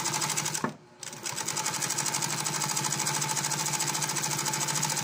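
Singer Facilita Master electric sewing machine running fast through a zigzag seam: a rapid, even needle-bar clatter over a steady motor hum. It stops briefly about a second in, then runs on. The stitching goes without hitches, the sign that the timing is right after the bevel gear was replaced.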